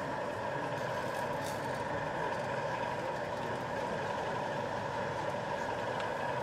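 OO gauge model Class 37 diesel locomotive running with DCC sound: a steady diesel engine note from its small onboard speaker, over the general din of an exhibition hall.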